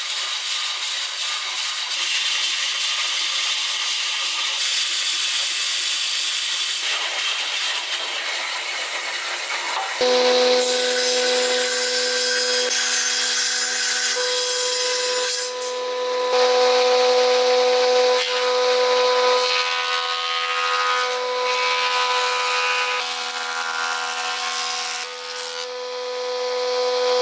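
A band saw cutting through a thick wooden board. About ten seconds in, it cuts to a planer running with a steady hum while boards are fed through it, the noise of the cutting rising and falling as the wood is planed.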